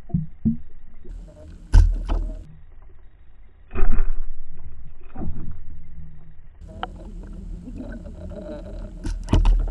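Underwater sound of a pike striking a wobbling jointed lure: a few sudden knocks and thumps over a low rumble of water noise, the loudest about four seconds in.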